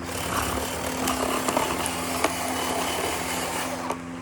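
Ryobi cordless power cutter running and cutting through plastic packaging, a rough, scratchy noise that stops briefly near the end and then starts again.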